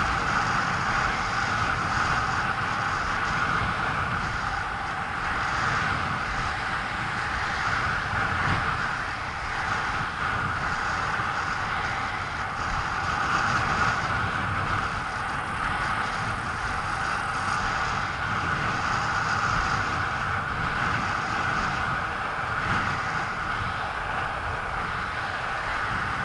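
Inline speed skate wheels rolling fast over asphalt: a steady rushing roar with no break, mixed with wind on the microphone.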